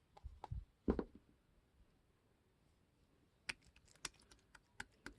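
Slime being pressed and handled by hand: a few soft low thuds, the loudest about a second in, then a quick run of sharp little clicks and pops in the last two seconds.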